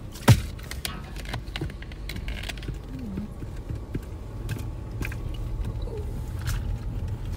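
Car engine and road rumble heard inside the cabin as the car rolls slowly forward, a little stronger from about halfway through. A sharp knock comes about a third of a second in, with a few lighter clicks after.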